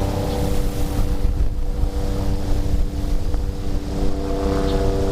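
A steady motor drone, even and unchanging in pitch, with wind gusting on the microphone.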